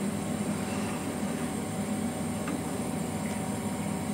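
Spiced broth boiling hard in a wok on a gas burner: a steady hiss and bubbling, with one light tap about halfway through.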